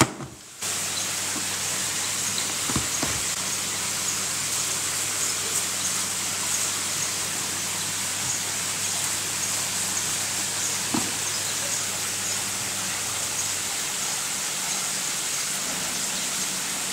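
Steady hiss of background noise under a low hum; the hum stops about two-thirds of the way through. Two faint soft knocks come about three seconds in and again about eleven seconds in.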